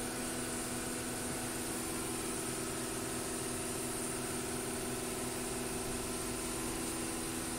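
A steady machine hum with a few held tones under a hiss, unchanging throughout.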